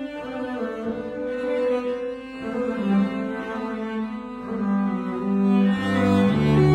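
Cello and double bass playing a Baroque duo sonata together, both bowed, with sustained notes in two moving lines. About six seconds in, a loud low held note comes in underneath.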